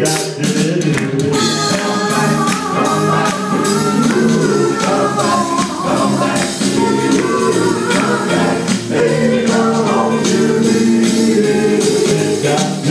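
Doo-wop vocal group singing in harmony, with sharp percussion hits keeping time.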